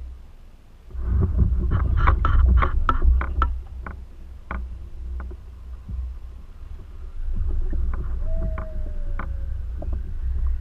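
Knocks and clatter against a canoe, a dense run of them between about one and four seconds in and scattered ones later, over a steady low rumble of wind on the microphone. A short falling tone sounds about eight seconds in.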